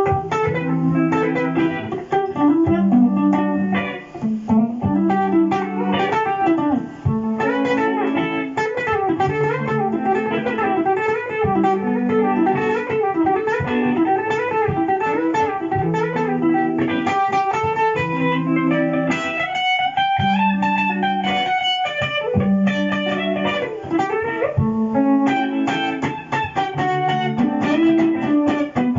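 Electric guitar played through a Boss GT-100 multi-effects unit, with a looped chord-and-bass pattern repeating about every two seconds under an improvised jazz-style lead melody. About twenty seconds in, the lead plays a long sliding phrase.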